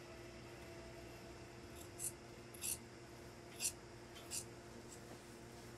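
Large tailor's shears cutting through coat fabric: four short, crisp snips, each under a second apart, starting about two seconds in.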